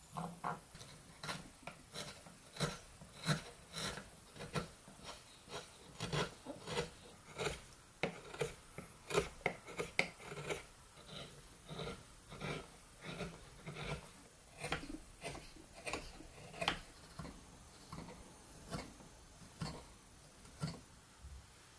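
Hand-pushed wood chisels paring chestnut wood: a run of short, crisp slicing strokes, about one or two a second, each cutting a shaving, thinning out near the end.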